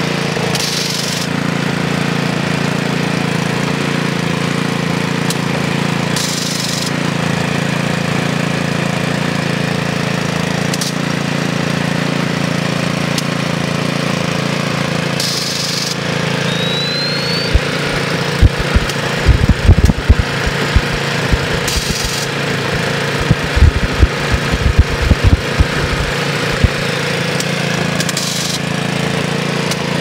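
Small gasoline engine of a recreational gold dredge running steadily, driving its pump and breathing-air compressor. Through the second half come irregular low thumps.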